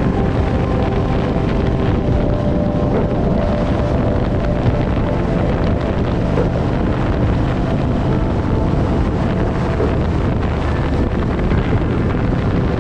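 Harley-Davidson motorcycle riding at speed: the engine running steadily under heavy wind buffeting on the microphone.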